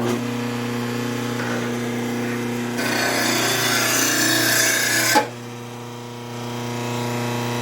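RBG712 mower blade sharpener's electric motor running with a steady hum as a mower blade is ground at a 30-degree angle. About three seconds in, the blade is pushed against the grinding wheel for a sharpening pass, adding a loud grinding hiss for about two seconds, then it is lifted off.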